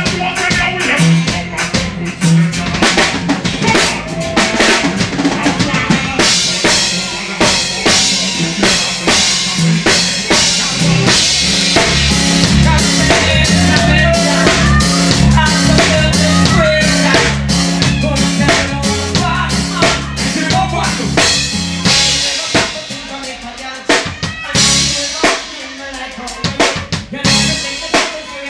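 Live reggae band music led by a drum kit, with frequent rimshots and snare hits over a strong bass line. About 22 seconds in, the bass and kick drum drop out and the music gets quieter and lighter.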